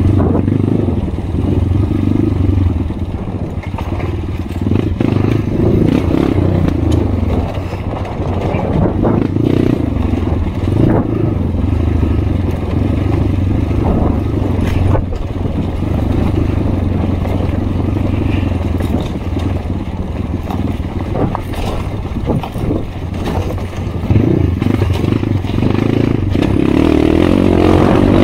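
Kawasaki KLX 150 dirt bike's single-cylinder four-stroke engine running at low revs over a rocky dirt trail, with stones and the bike's chassis clattering along the way. The engine revs up near the end.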